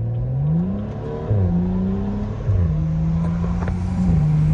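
BMW N55 turbocharged straight-six with a straight-piped Akrapovic exhaust, revving up hard under acceleration. The revs climb in the first second, then dip briefly at quick gear changes about a second in and again about two and a half seconds in, with a smaller step near the end.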